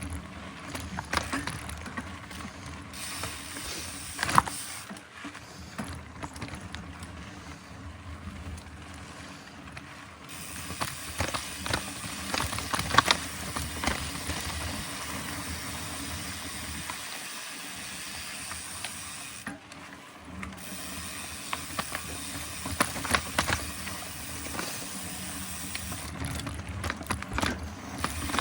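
Mountain bike rolling along a trail, its rear freehub ratchet ticking while coasting, with scattered knocks and rattles from bumps.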